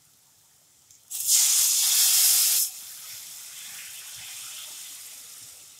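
Water poured into a hot pan of fried masala paste and oil: a sudden loud hiss and sizzle about a second in, lasting about a second and a half, then a softer sizzle that slowly fades.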